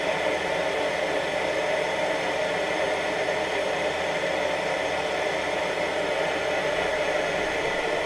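Coleman 168K kerosene pressure table lamp burning, its vaporizing burner giving a steady, intense hiss of pressurized combustion.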